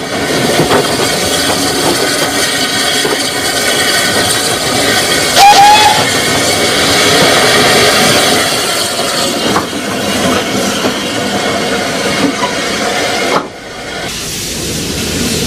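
Small 750 mm gauge steam tram locomotive running, with a steady hiss of steam and the rattle of its carriages. Its whistle gives one short blast about five seconds in. The sound drops suddenly and goes on quieter near the end.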